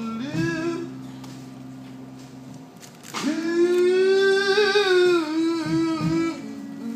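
A man singing blues: a short sung phrase, then a loud, long held note from about three seconds in, wavering near its end, over a steady low held chord.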